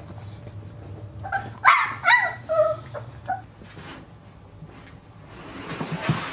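Puppy yipping and whining: about half a dozen short, high calls that bend in pitch. Near the end, a rising scraping rush with a few soft thumps as a puppy slides down a plastic slide.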